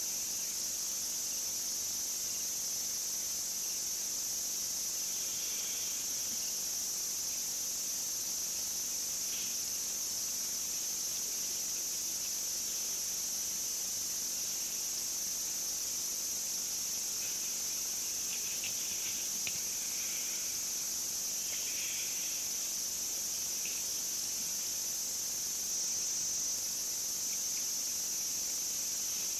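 Steady high-pitched chorus of insects, such as crickets, with a few brief fainter sounds scattered through it.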